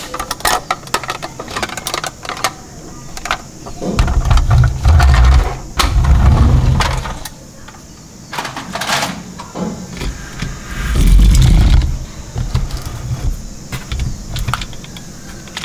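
Plastic toy trucks handled on a tabletop: irregular clicks and clatter of plastic parts, with three heavier low rumbles of a second or so each as the toys are moved across the table.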